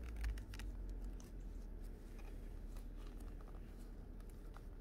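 Handling noise from a leather knife sheath turned in a gloved hand: a few light clicks and rustles, mostly in the first two seconds, over a steady low rumble.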